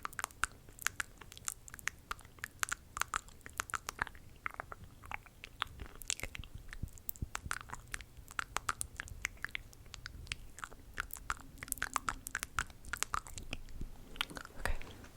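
Close-miked ASMR mouth sounds: rapid, irregular clicks and smacks of the lips and tongue, several a second.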